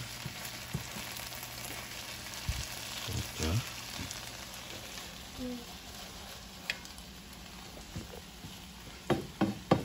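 Filet mignon and hash browns sizzling steadily in a frying pan, with a spatula scraping and pushing the food around the pan in short clicks and scrapes.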